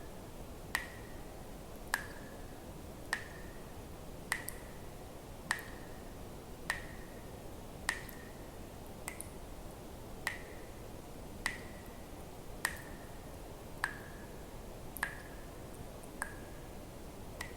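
Water drops falling one at a time into water at an even pace, about one every 1.2 seconds, each a sharp plink with a brief ringing tone, over a faint steady hiss.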